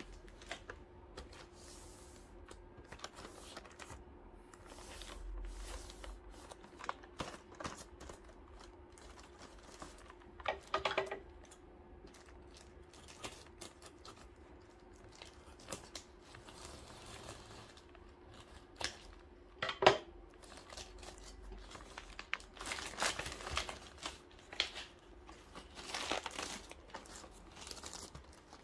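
Plastic mailer bag crinkling, rustling and tearing as it is cut open with scissors, in scattered bursts with small clicks and one sharp knock about two-thirds of the way through. A faint steady hum runs underneath.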